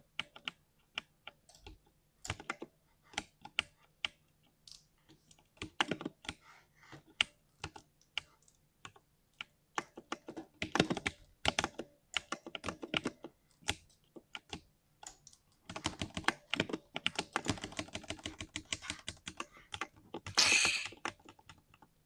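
Typing on a compact 60% mechanical keyboard: irregular keystrokes, with runs of fast typing in the middle and a louder half-second burst near the end.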